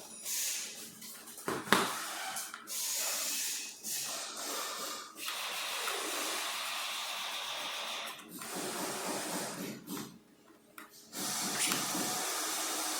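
Hissing, rustling noise that comes and goes, with a sharp click about two seconds in and a brief lull near the end.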